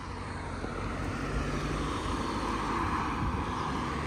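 Street traffic: a passing vehicle's noise swells to a peak about three seconds in and then eases off.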